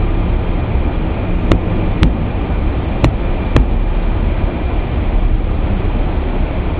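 Night-train passenger coaches rolling slowly past: a steady rumble and hiss, with sharp wheel clicks coming in pairs about half a second apart, twice, as the wheelsets of each bogie cross a rail joint.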